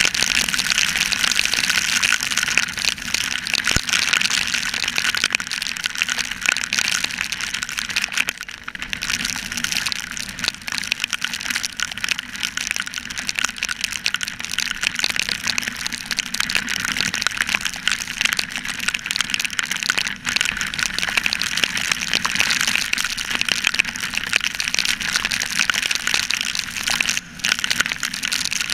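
Heavy rain and road spray pelting an action camera on a moving motorcycle: a loud, dense crackling hiss, dipping briefly a few times.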